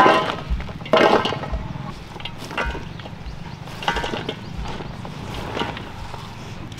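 Cauliflower florets dropped by hand into a metal basin: a few soft knocks, the two strongest near the start and about a second in with a brief ring from the basin, then lighter, scattered ones.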